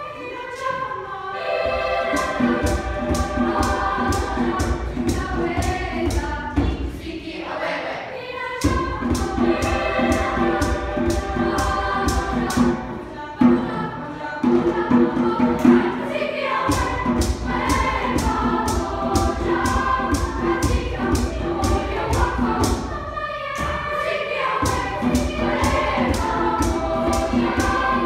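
Youth choir singing in parts over a steady hand-drum beat, about two strokes a second. The voices break off briefly a few times between phrases.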